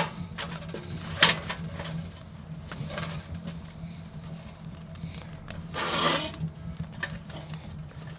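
Split firewood being pushed into the firebox of a small wood-burning stove and the stove's metal door being shut: wooden knocks and clicks against the metal, the sharpest about a second in, and a brief scrape about six seconds in. A steady low hum runs underneath.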